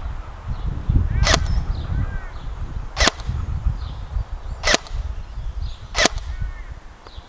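Airsoft DMR electric rifle, a King Arms L1A1 SLR replica, firing four single shots of 0.25 g BBs, one every second and a half or so. Each shot is a short, sharp crack.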